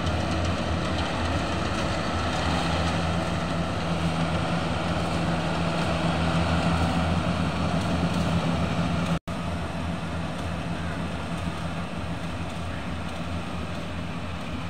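Rice combine harvester's engine running steadily under load as it cuts paddy, a constant low hum. The sound drops out for an instant about nine seconds in, then goes on a little quieter.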